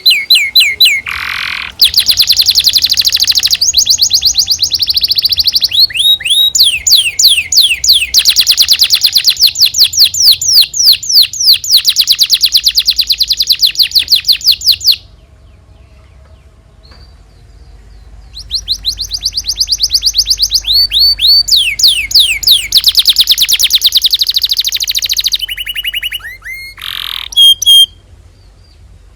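Domestic canary singing: long trills of rapid, evenly repeated high notes, broken midway by a pause of about three seconds, then more trills and a few separate chirps near the end.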